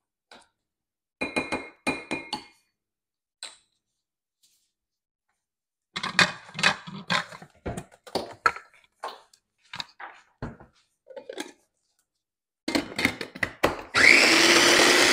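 A wooden spoon scraping and tapping against the glass bowl of a small electric food chopper, with a few clicks as the lid is pressed on. About a second before the end the chopper's motor starts with a rising whine and runs, chopping garlic, shallot, lemongrass and galangal into a paste.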